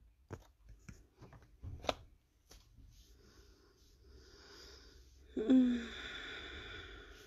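A few light clicks and knocks of handling in the first seconds, then, about five seconds in, a person's long breathy exhale, like a sigh, that starts with a brief voiced sound falling in pitch and fades out over about two seconds.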